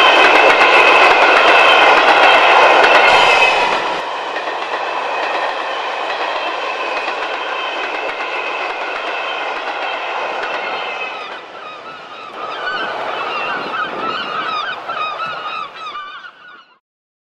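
Steam-hauled passenger coaches pass at speed, wheels clattering over the rail joints. The sound drops sharply after about four seconds and carries on quieter, with a series of wavering high calls in the last few seconds before it cuts off.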